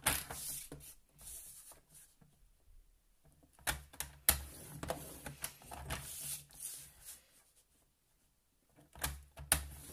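Card being scored on a paper trimmer: sharp clicks and knocks of the trimmer and the scoring blade drawn along the card, with rustling as the card is lifted, turned and lined up again.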